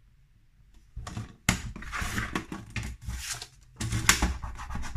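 Tonic paper trimmer cutting a sheet of patterned paper: the blade carriage slides and clicks along its rail, with paper rustling as the sheet is handled. After a quiet first second the clicking and scraping start, with a sharp click about a second and a half in and another loud burst near the end.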